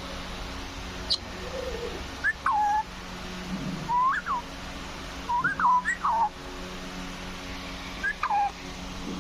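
Pet green parrot giving several short whistled calls, each sliding up and down in pitch, in a loose series with a pair of quick calls in the middle. A steady low hum runs underneath.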